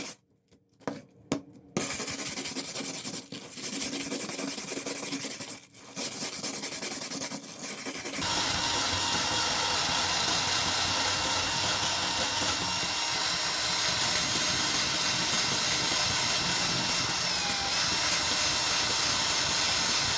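Abrasive rubbing and scraping on metal in uneven strokes, broken by short gaps, typical of removing rust from a knife blade. About eight seconds in, it gives way to a steady, even rushing noise from a power tool that keeps running.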